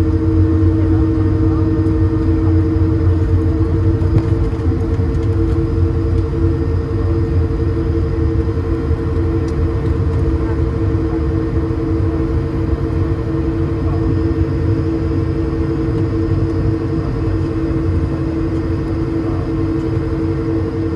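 Steady cabin drone inside an Airbus A220 on the ground after landing: a low rumble with two constant humming tones above it.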